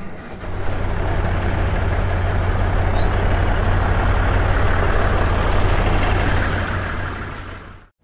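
A motor vehicle running on the road: a steady engine hum under even road noise, fading out near the end.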